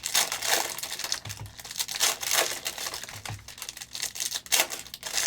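Crinkling and tearing of plastic trading-card pack wrappers as 2022 Prizm No Huddle football card packs are ripped open and handled, in repeated irregular rustles with a few soft thuds.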